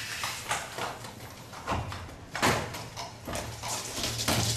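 Irregular knocking and clattering of workers fitting prefab wall panels into place, with the loudest knock about two and a half seconds in.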